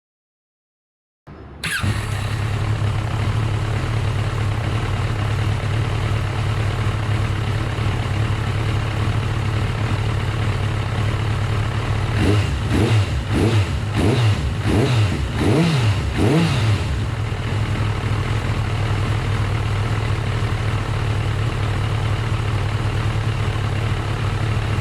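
Kawasaki ZRX1200R inline-four motorcycle engine idling steadily. It comes in after about a second of silence, and from about halfway through it is blipped five times in quick succession, each rev rising and falling, before settling back to idle.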